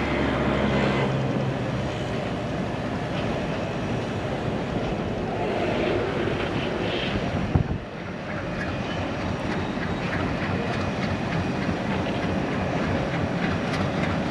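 A train running slowly across a long sea rail bridge: a steady rumble mixed with wind on the microphone, and one sharp thump about halfway through.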